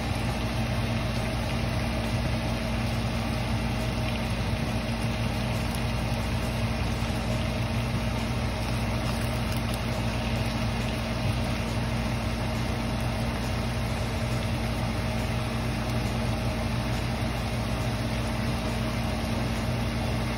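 Marinated chicken thighs and pork chops sizzling in a frying pan, with a steady low mechanical hum underneath.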